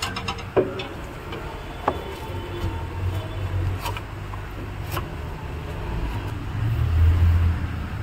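A few sharp knocks and clunks of metal against metal as an alternator is worked by hand up into a car's engine bay from below, the loudest about half a second in. Under them runs a low rumble that swells twice.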